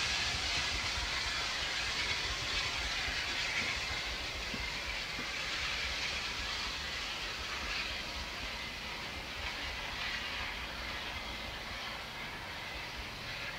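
Steam-hauled train running on the line: a rolling, hissing rush with a low rumble that slowly fades as the train draws away.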